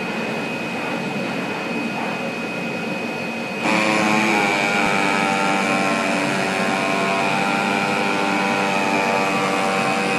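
iECHO BK digital cutting machine running its pneumatic oscillating tool (POT) through EPE foam: a steady mechanical whir with a high whine, growing suddenly louder and fuller about three and a half seconds in.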